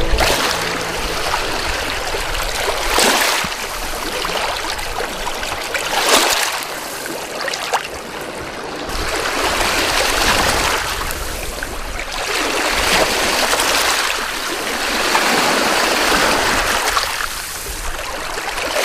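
Water splashing and washing in surges that swell and fade every two to three seconds.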